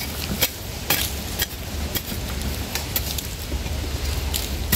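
Digging hoe scraping and chopping into dry, crumbly soil in a small burrow. There are several sharp scrapes in the first second and a half and again near the end, over a low steady rumble.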